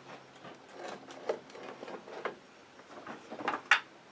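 Hand work with hardware: scraping and rubbing with scattered clicks and knocks, the sharpest click coming near the end.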